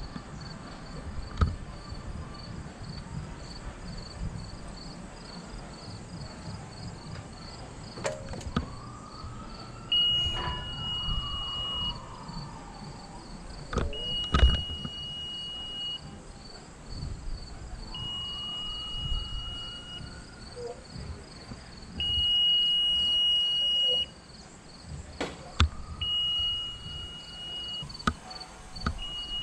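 An electronic alarm gives a steady high beep about two seconds long, repeating every four seconds. The beeping starts about a third of the way in, over constant cricket chirring, with a few knocks and some rising-and-falling tones.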